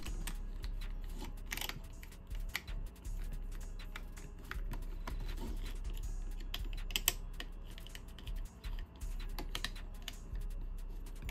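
Irregular small clicks and taps of tools against the metal and plastic parts of an airsoft M4 rifle as it is taken apart to get at the gearbox, over a steady low hum.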